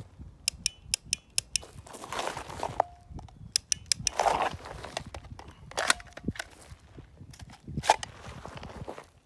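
Dry-fire trigger clicks from a Glock 45 fitted with a dry-fire training magazine, which resets the trigger without racking the slide. The clicks come in quick strings of several at a time, between short scrapes and rustles of a body rolling on dirt and gravel.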